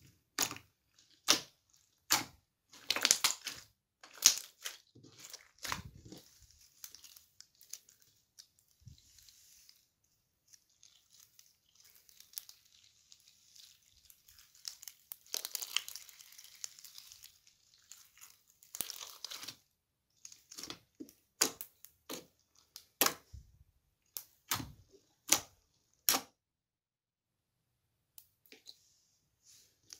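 Glossy, bead-studded slime being kneaded, stretched and poked by hand: sharp sticky pops and clicks, one after another, with denser crackling in the middle and single spaced pops later on.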